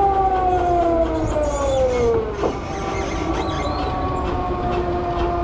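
Electric go-kart motor whining, its pitch sliding down over the first two seconds as the kart slows, then holding steady, over a low rumble.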